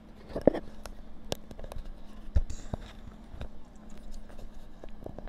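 Close-miked eating of crispy fried chicken: irregular crackles, crunches and clicks of the breaded skin being chewed and the pieces handled, with a low steady hum underneath.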